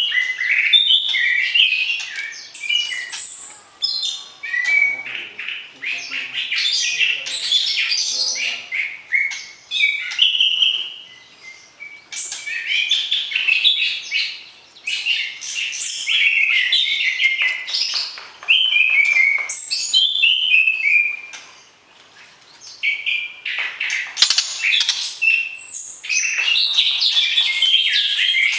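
White-rumped shama (murai batu) singing: long runs of varied whistled phrases and rapid chirps, broken by a few short pauses.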